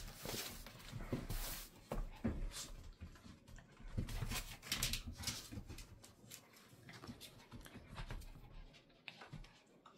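Two Cavalier King Charles spaniel puppies playing, their paws and claws scrabbling and clicking on a rug and tile floor in irregular scuffles.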